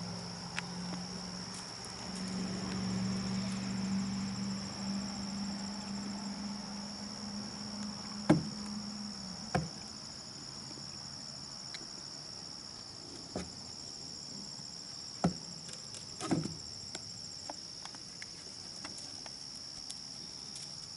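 Crickets chirring in a steady high-pitched drone. Over it come a handful of sharp knocks of a horse's hooves on a wooden platform, between about eight and sixteen seconds in, the first the loudest. A low steady hum stops about nine seconds in.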